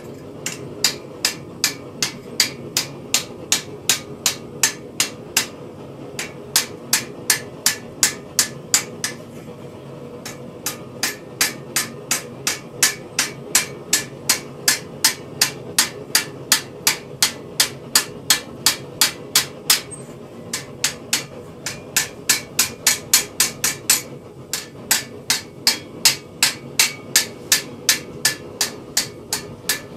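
Hand hammer striking a metal acanthus leaf over a repoussé stake, about three ringing blows a second in runs broken by short pauses.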